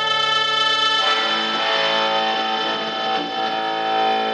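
Live band music: a distorted, effects-laden electric guitar holds a sustained droning chord. The sound thickens into a denser, noisier texture about a second in.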